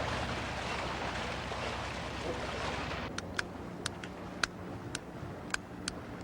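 A motorboat's engine running under water and wind noise, which cuts off after about three seconds. A series of sharp ticks follows, about two a second, over a low steady hum.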